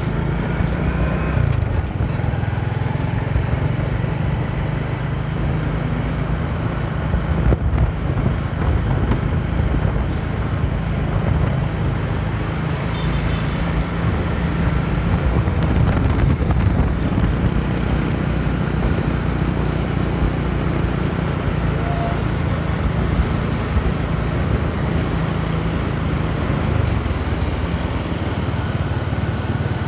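Motorcycle riding along a street: a steady engine drone under heavy low wind noise on the microphone.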